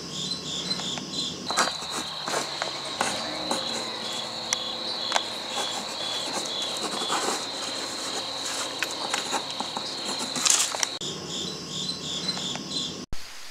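Crickets chirping in a high, even pulse of about three chirps a second, with a continuous high trill through the middle stretch and scattered faint knocks. The sound cuts off abruptly near the end.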